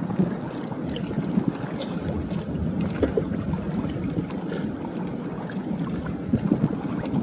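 Low, continuous rumble with wind buffeting the microphone in irregular gusts, one stronger gust near the end.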